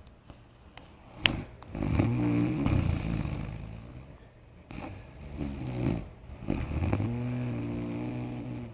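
A person snoring in their sleep: three long, low snores a couple of seconds apart, with a sharp click about a second in.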